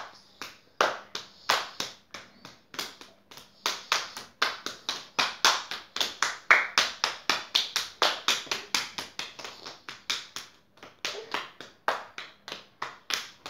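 Two children playing a hand-clapping game, a quick steady run of sharp hand claps and palm-to-palm slaps, about three to four a second.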